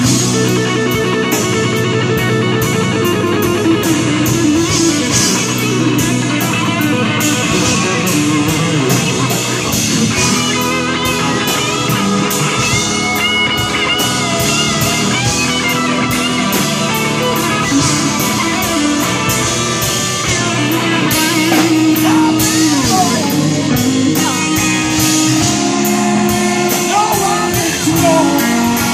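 A live blues-rock band playing: electric guitar lead over keyboards, bass guitar and a drum kit keeping a steady beat.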